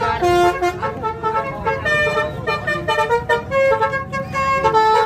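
A bus's telolet horn, a set of multi-tone horns, playing a quick melody of short stepped notes, often several sounding together, over a low rumble.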